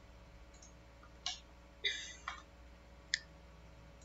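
A few scattered computer mouse clicks, the sharpest about three seconds in, over a faint steady low hum.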